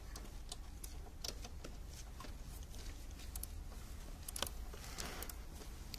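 Faint, irregular clicks and small metallic knocks of a socket wrench on a long extension tightening the throttle body's mounting bolts to torque, over a steady low hum.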